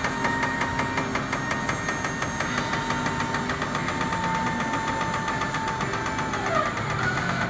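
Bucket truck's engine running with a steady rhythmic knock, and a steady whine over it that slides down in pitch a little after six seconds in.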